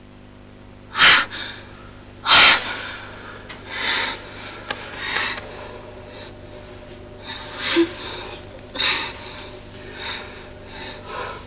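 A person crying: two sharp gasping sobs about a second and two and a half seconds in, followed by a run of softer sobbing breaths.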